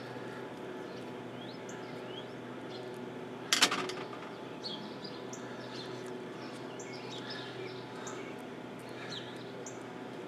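Birds chirping repeatedly in the background, with one sharp clack about three and a half seconds in as a screwdriver is set down on a metal mesh table.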